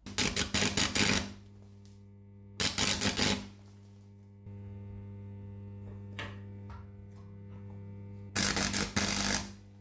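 MIG welder arc crackling in three short bursts of about a second each, tack-welding the screwdriver's cut steel shank back together. A steady electrical hum runs beneath and steps up a little about halfway through.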